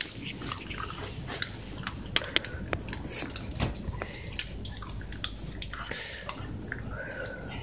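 A Shiba Inu chewing a milk-flavoured dog chew, with irregular crunching clicks as it bites down.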